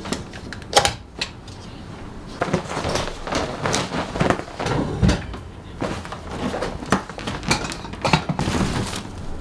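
Handling noise from setting up studio lighting gear, an LED light on a stand and a gridded softbox: irregular clicks, knocks and clatter with fabric rustling between them.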